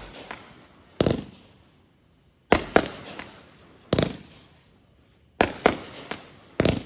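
Consumer fireworks bursting: about seven sharp bangs, some in quick pairs, each trailing off in a fading rumble.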